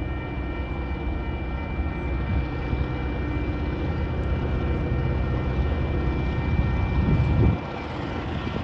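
Diesel locomotive approaching with its engine running, a low rumble with a steady high whine over it, slowly growing louder before dipping suddenly near the end.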